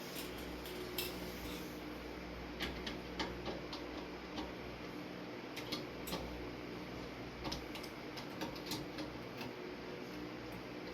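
Scattered small clicks and ticks of screws, screwdriver and metal fan parts being handled while a ceiling fan's blades are unscrewed, over a steady low hum.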